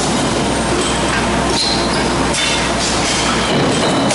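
Dense clattering of forging presses at work in a hot-forging shop: metal clanks and knocks over a steady low machinery hum, with a couple of sharper knocks in the middle.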